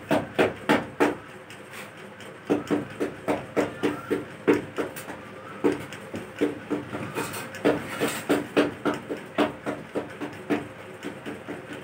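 Rapid knocking on a hollow, rusty metal box, about three to four ringing knocks a second. The knocks pause briefly about a second in, then resume.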